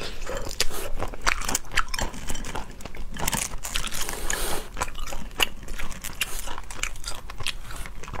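Boiled crayfish shells cracking and crackling as they are pulled apart by hand and bitten, with chewing, close to the microphone. Many short, sharp crackles follow each other throughout.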